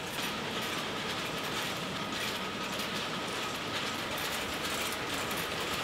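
Computer-controlled tulip bunching machine running: a steady mechanical clatter of conveyor and grippers, with many small rapid clicks.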